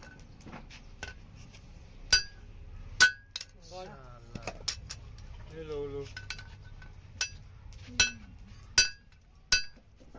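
Hand hammer striking a red-hot leaf-spring kukri blade on the anvil: about ten irregular blows, some light taps and some heavy ones that ring with a metallic clink.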